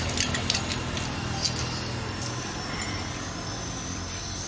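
A few light metal clinks in the first second and a half, as engine parts and tools are handled, over a steady low mechanical hum.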